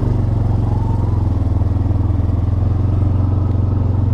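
ATV (four-wheeler) engine running at a steady, low engine speed, a loud even rumble with a regular firing pulse that holds the same pitch throughout.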